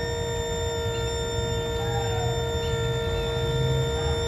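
Bajaj Pulsar RS 200's electric fuel pump motor running with a steady high whine, fed directly through a jumper wire that bypasses its relay, with the ignition on. The pump runs when wired direct, which the mechanic takes to mean the relay or wiring could be at fault.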